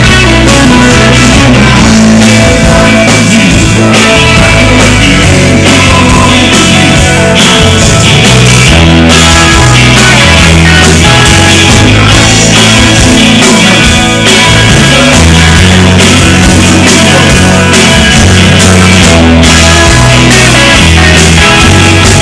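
Live rock band playing loud: electric guitar over a five-string bass guitar and a drum kit, with the bass line stepping from note to note.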